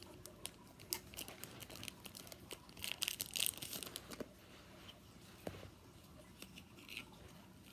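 Foil wrapper of a Pokémon card booster pack being torn open and crinkled by hand, in short, uneven crackles that are busiest about three seconds in.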